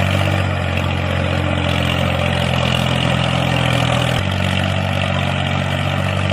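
A motor running steadily with a low hum; its pitch shifts slightly about four seconds in.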